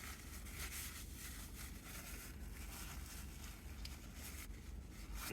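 Faint eating sounds: quiet chewing and small irregular mouth and crackling noises over a low steady hum.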